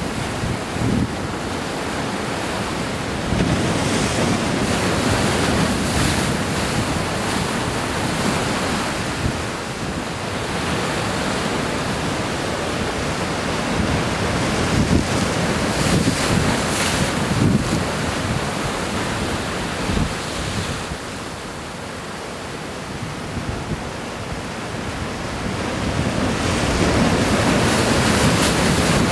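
Wind buffeting the microphone over waves washing against a rock breakwater: a rough, rushing noise that swells and eases every few seconds.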